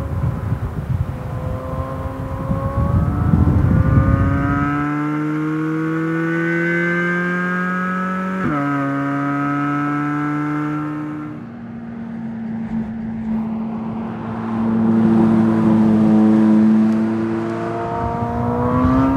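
Chevrolet Corvette Z06's 5.5-litre LT6 flat-plane-crank V8 accelerating hard, its pitch climbing with the revs, dropping sharply at a gear change about eight seconds in and climbing again. The engine eases off partway through, then swells and rises again near the end.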